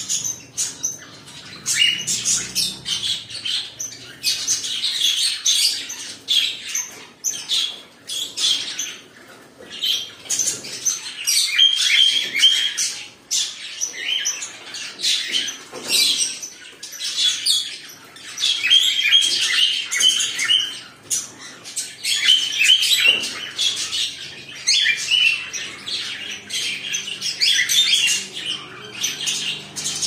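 Cockatiels chattering in dense runs of rapid, high chirps and squawks, coming in clusters a few seconds long with short pauses between.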